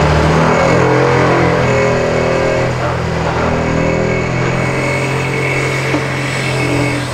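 Liebherr 946 excavator's diesel engine running steadily and loud, with a steady high whine above it.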